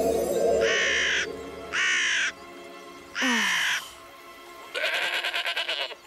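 Cartoon mockingbird mimicking other animals: three harsh crow-like caws, the last sliding down in pitch, then a quavering sheep-like bleat near the end, over soft background music.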